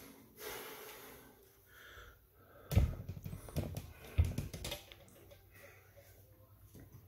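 Camera handling noise: two dull thumps with rustling in between as the camera is moved, and breathing close to the microphone.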